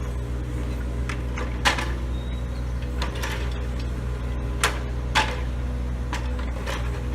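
John Deere 35G compact excavator's diesel engine running steadily, with sharp knocks about two seconds in and twice around five seconds in.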